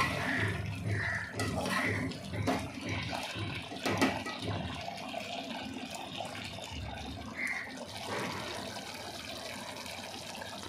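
Chicken gravy simmering in a pot: a steady bubbling hiss, with a couple of sharp knocks about two and a half and four seconds in.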